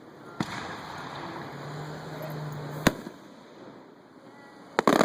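Display fireworks exploding overhead. There is a bang about half a second in, a sharp single report near three seconds, and a quick run of loud bangs near the end.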